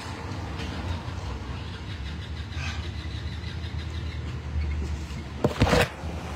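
Low steady rumble of a vehicle engine idling, heard from inside a pickup truck's cab. About five and a half seconds in there is a loud knock and handling noise as the phone is picked up.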